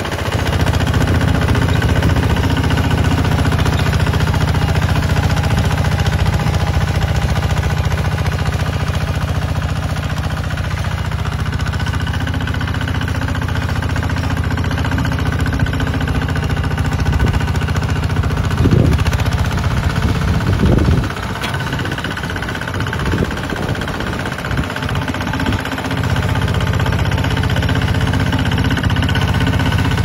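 Kubota RT140 single-cylinder diesel engine on a two-wheel walking tractor, running steadily under load as it pulls a levelling board over tilled soil. The sound drops somewhat about two-thirds of the way through and comes back a few seconds later.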